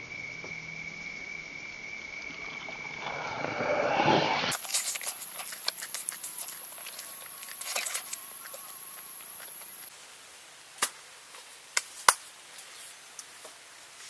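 Close-up eating sounds: biting into and chewing grilled duck, with wet chewing and a rising swell in the first few seconds, then crisp smacks and clicks. Near the end come three sharp cracks.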